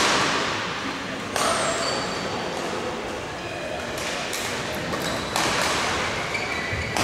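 Badminton hall sounds: shoes squeaking briefly on the court floor and several sharp racket hits echoing in the large hall, with voices in the background.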